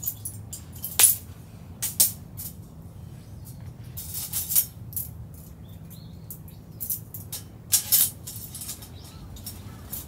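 Sharp metal clinks and rattles as a folding stainless steel grill stand and a wire grill mesh are handled and set onto a canister gas burner, loudest about a second in and near eight seconds.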